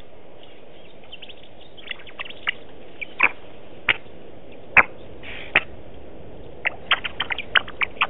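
Red-billed oxpecker's short, sharp calls, each a quick downward-sweeping note. They are scattered at first, then come in a fast run over the last second or so, over a steady background hiss.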